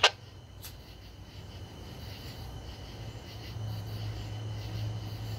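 Police radio scanner between transmissions: a sharp squelch click as the previous transmission cuts off, a smaller click shortly after, then a faint hiss with a steady low hum that grows a little stronger after about three and a half seconds.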